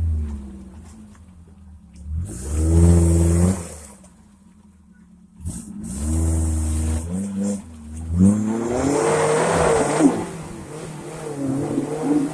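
Off-road 4x4's engine revving in repeated bursts as it climbs a muddy rut, pitch rising and falling with each blip of the throttle. The longest rev comes about eight seconds in, with a rougher rush of noise under it.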